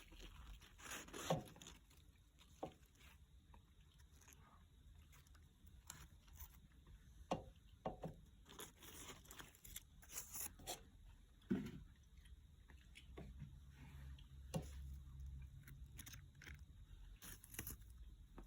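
Faint handling noise: scattered clicks, scrapes and rustles, the sharpest about a second in.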